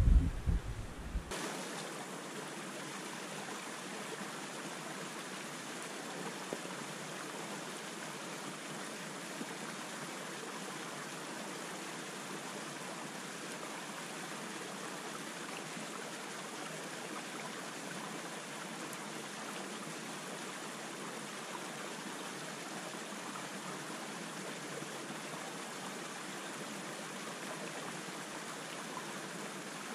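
Small hill stream splashing over a boulder in a little waterfall and running on over rocks: a steady, even rush of water.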